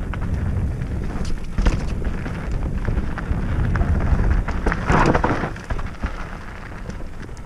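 Mountain bike ridden fast down a dirt singletrack: knobby tyres crunching and rattling over dirt and roots, with steady wind rumble on the camera microphone and a louder rush of noise about five seconds in.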